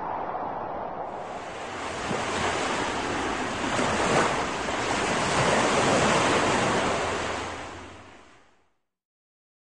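Surf and wind: a steady rush of breaking waves that swells and then fades out near the end.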